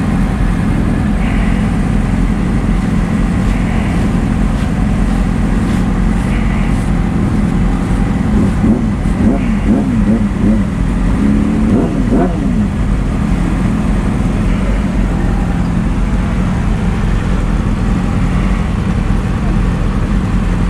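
A steady engine drone at idle, with voices talking in the background.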